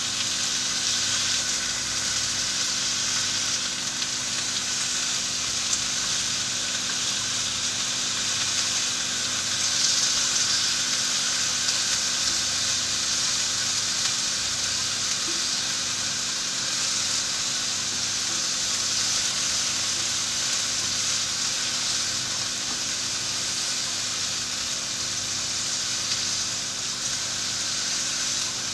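Beef and long green onions sizzling steadily in a hot frying pan as they are stir-fried, turned over with tongs.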